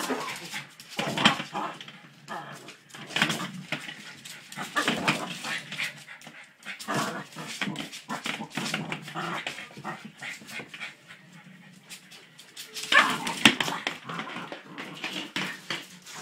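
Border terrier puppy whimpering and yipping in repeated bursts every second or two as it plays.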